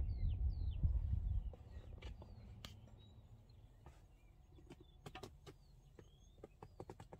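Birds chirping, repeated short hooked calls throughout, with a low rumble in the first second and a half and scattered light clicks and taps.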